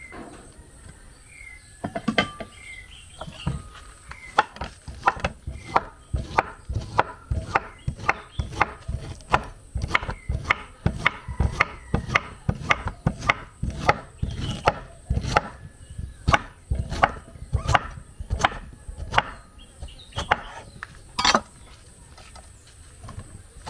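Steady knocking strikes of food preparation on wood, about two a second, starting about two seconds in and stopping near the end.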